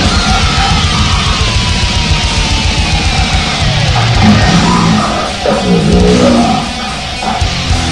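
Loud heavy metal music with electric guitar, with a long falling pitch slide through the first half.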